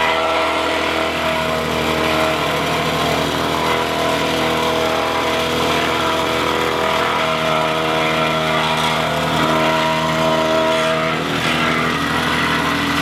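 Wacker Neuson VP1550 plate compactor running steadily, its small engine and vibrating plate working across newly laid concrete pavers.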